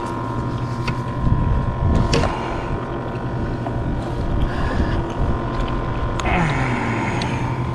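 A motorboat engine drones steadily, its pitch dropping about six seconds in as it slows. A few sharp clicks and knocks sound over it.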